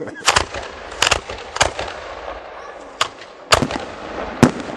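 Fireworks going off: a string of about seven sharp bangs at irregular intervals, two of them close together about a second in.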